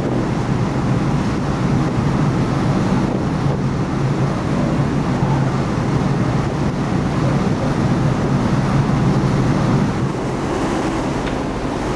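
Car ferry under way: a steady low engine drone mixed with wind buffeting the microphone and the rush of the sea, easing slightly near the end.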